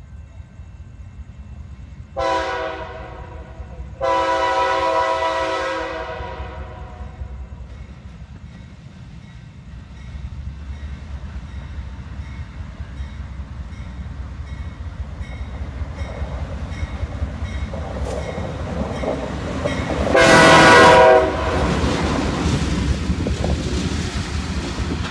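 CSX diesel locomotives running light, with no cars, approach and pass. Their chime air horn sounds three times: a short blast, then a long one of about three seconds, and near the end a short blast that is the loudest, as the locomotives draw close. Under the horn, the engines' low rumble grows louder as they come nearer.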